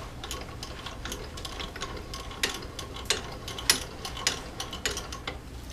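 Irregular light metallic clicks and ticks, a few each second, from a new 4-inch bench vise being handled.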